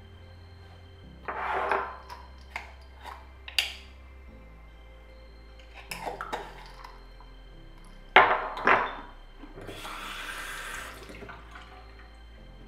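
Small objects clacking and clattering as they are handled and set down on a bathroom counter, with a short hiss about ten seconds in, over faint background music.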